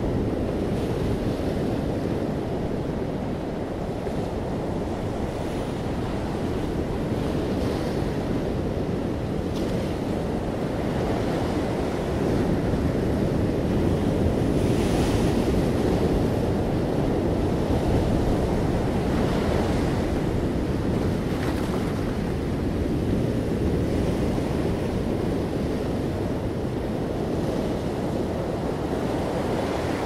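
Ocean surf breaking among rocks and washing up a sand beach: a continuous rush of water that swells in the middle, with one wave crashing about halfway through.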